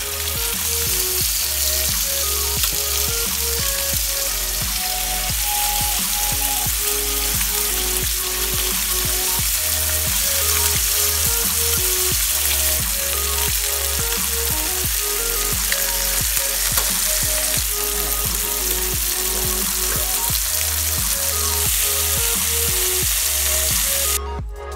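Tilefish fillets sizzling steadily as they pan-sear in oil in a frying pan; the sizzle cuts off suddenly near the end.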